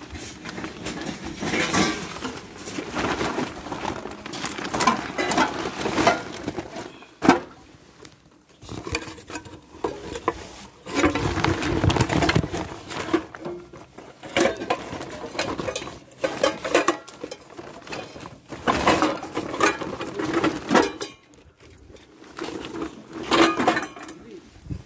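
Rummaging through plastic garbage bags of discarded cookware: irregular rustling of plastic and handling noise, with clinks of pots and glass lids and a sharp knock about seven seconds in.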